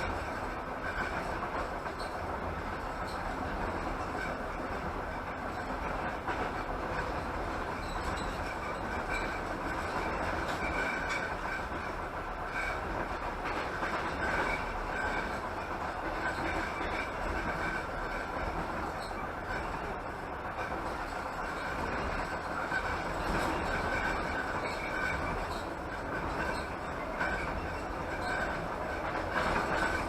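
Passenger train coach running at speed, heard from inside: a steady rumble and rush of wheels rolling on the rails, with faint occasional clicks.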